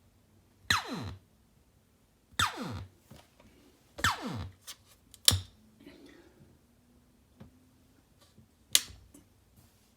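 Fishman Loudbox Mini Charge acoustic amplifier making a strange unexplained noise: three short zaps that sweep sharply down in pitch, a second or two apart, then a few sharp pops and clicks.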